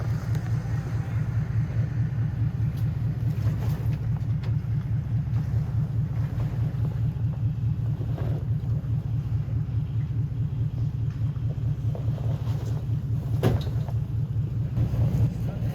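Off-road 4x4's engine running at low revs, a steady pulsing rumble as it crawls slowly over a trail obstacle, with a sharp knock about two-thirds of the way through.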